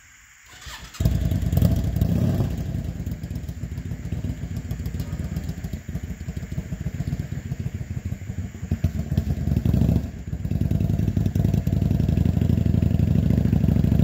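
Yamaha V-Star 650's air-cooled V-twin being started: it catches about a second in, then runs with a steady, even beat. There is a short dip about ten seconds in, and it grows louder near the end as the motorcycle moves off toward the camera.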